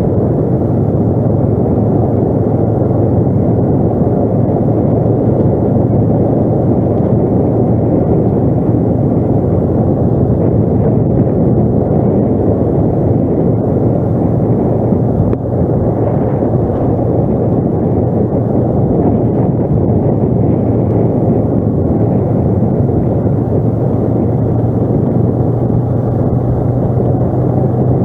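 An ATV engine running steadily under way, a loud, even drone with a constant low hum and no breaks.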